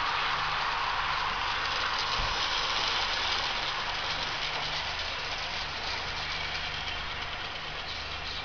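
Sound-fitted 00 gauge model diesel locomotive running, its DCC sound decoder playing a steady low diesel engine drone, over a hiss that grows a little fainter after about four seconds.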